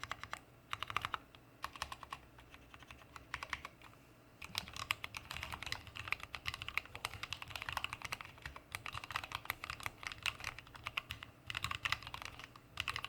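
Mechanical keyboard with lubed Kailh BOX Black linear switches, mStone Clarion keycaps and an aluminium plate being typed on: a steady stream of keystrokes that thins out for a couple of seconds, then picks up into fast typing about four seconds in.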